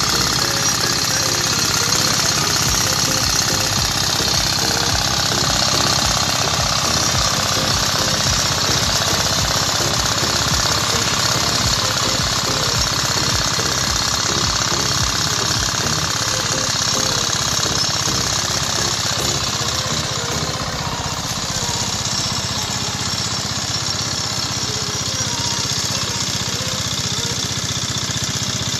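Small engine of a walk-behind two-wheel tractor (power tiller) running steadily with a rapid, even knocking beat as it works a muddy rice paddy.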